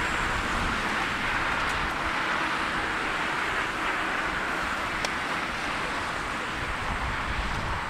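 Boeing 787 airliner's jet engines as a steady, distant rushing roar while the plane rolls out along the runway after landing.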